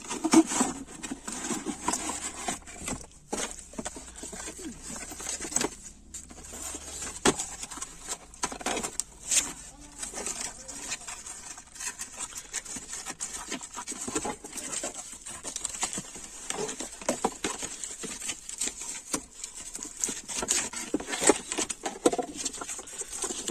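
Cardboard box and plastic wrapping rustling, scraping and crinkling as a pair of LED fog lamps is slid out of its packaging by hand, with irregular small crackles and taps throughout.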